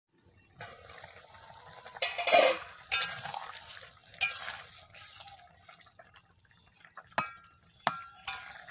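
Metal pot and lid clinking and knocking several times as the pan of curry is covered, over a steady sizzling hiss from the cooking pan.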